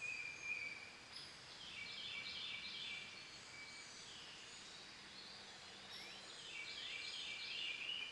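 Faint birdsong: two runs of quick repeated high chirps, about two and seven seconds in, with a few single sliding notes between.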